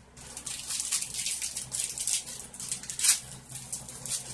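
Packaging around a makeup brush crinkling and rustling as hands work at it to get it open, in a run of short scratchy crackles, with one sharper crack about three seconds in.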